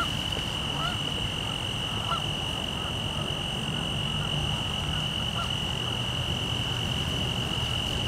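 Male Forbes' tree cricket (Oecanthus forbesi) singing a steady, unbroken high trill. Behind it, wind rumbles on the microphone and a few faint honks come from distant Canada geese.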